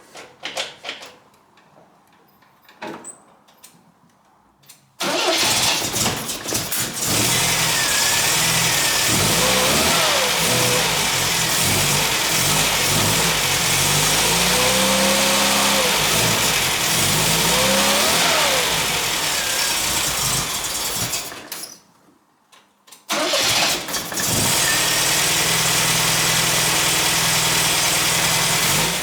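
1979 MGB Roadster's 1.8-litre B-series four-cylinder engine: a few clicks, then about five seconds in it fires and runs, revved up and down a few times. It is switched off, then started again about a second and a half later and left running.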